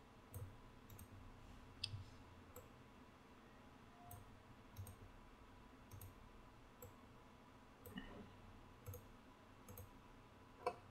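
About a dozen faint, irregular clicks, roughly one a second, from a computer mouse and keyboard being used, over quiet room tone.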